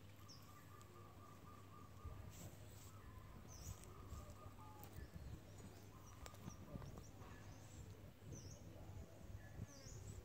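Very quiet, faint rustling and soft bumps as a smooth-coated otter shifts about right against the phone. Faint high chirps and whistles come and go behind it.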